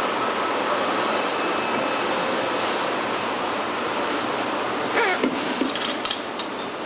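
Steady machinery noise of a truck assembly line, with a short squeal that falls in pitch about five seconds in, followed by a few quick clanks.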